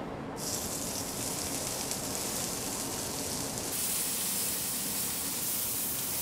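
Bacon-wrapped pork roll sizzling in a hot skillet as it is seared. The sizzle starts suddenly about half a second in as the meat goes into the pan, and grows louder about four seconds in as the roll is turned with tongs.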